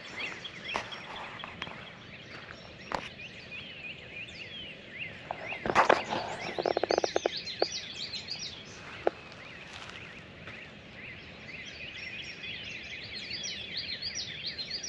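Dawn chorus of many small songbirds chirping and trilling in a swamp woods, with a few sharp snaps. About six seconds in comes a loud, rapid rattle lasting about a second and a half.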